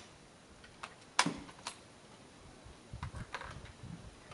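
A sharp metallic clack about a second in, then a cluster of lighter clicks and knocks around three seconds in, from shooters handling bolt-action military rifles on the firing line.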